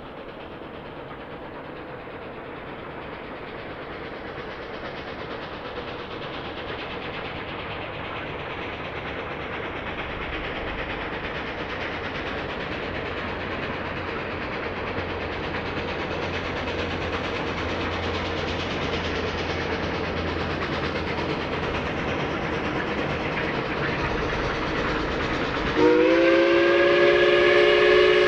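Narrow-gauge K-28 steam train approaching, its running sound growing steadily louder. Near the end its steam whistle sounds a loud, multi-note chord that bends up in pitch as it opens.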